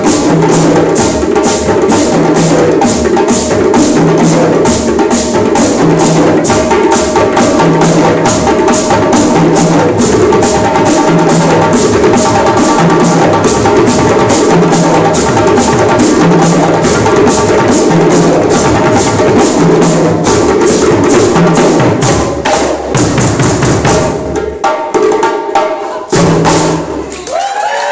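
A djembe ensemble with tall bass drums playing a fast hand-drum rhythm together, a low bass note repeating about once a second under dense rapid strokes. Past about twenty seconds the playing thins out and breaks into a few last hits with short gaps.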